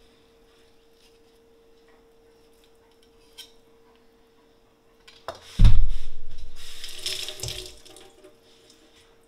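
Kitchen faucet turned on and water running into a stainless steel sink as hands are rinsed. It starts with a loud thump about five and a half seconds in, then runs for about two seconds and fades out.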